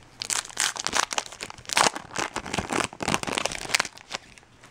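A foil trading-card pack wrapper crinkling and tearing as hands open it. It makes a run of irregular crackles that stop about four seconds in.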